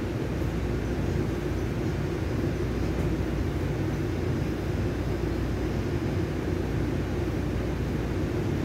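Steady engine and road noise heard from inside a moving vehicle, an even low rumble with no distinct events.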